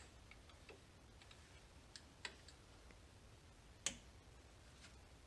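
Near silence broken by a few faint metallic clicks of a wrench on a brake caliper's 11 mm bleeder screws as they are cracked open for a gravity bleed, the sharpest click about four seconds in.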